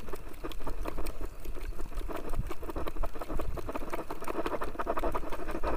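Spinning reel being cranked steadily with a fast run of clicks as a hooked fish is reeled in on a jigging rod, over a low wind rumble and water against the boat's hull.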